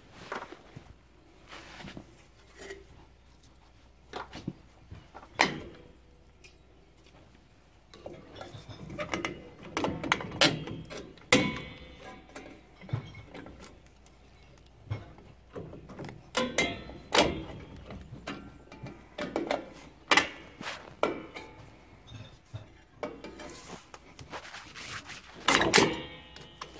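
Metal clicks, knocks and scraping as the shoes, springs and clips of a drum brake are handled and worked loose by hand. The sounds are sparse at first and come thick and fast from about eight seconds in.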